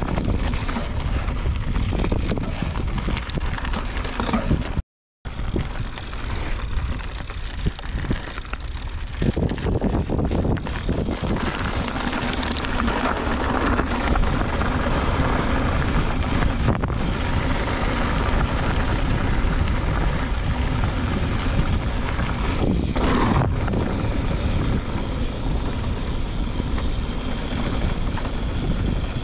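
Wind rushing over a GoPro action camera's microphone during a mountain bike ride, with scattered clicks and rattles from the bike over the rough trail. The sound cuts out for a moment about five seconds in.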